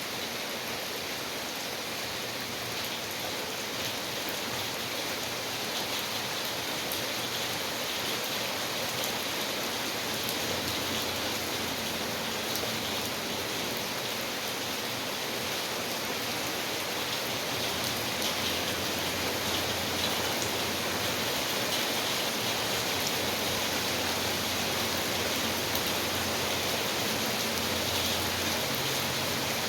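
Steady rain falling, a continuous hiss with many fine drop ticks.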